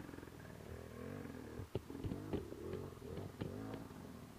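Enduro dirt bike engine running at low revs, its pitch rising and falling as it crawls over rocks, with several sharp knocks in the middle.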